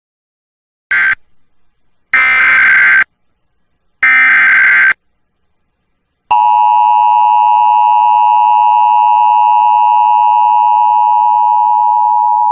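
Emergency Alert System broadcast tones: three buzzy bursts of SAME digital header data, the first cut short and the other two about a second each, then about six seconds in the steady two-tone EAS attention signal begins and holds. These tones announce the start of a new alert message.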